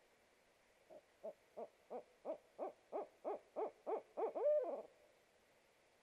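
Barred owl hooting: a quick run of about eleven short hoots, some three a second and growing louder, ending in a longer drawn-out hoot that slurs downward.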